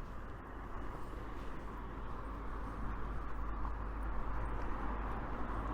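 Steady outdoor street noise: a low rumble with a hiss above it, growing a little louder near the end, with no single distinct event.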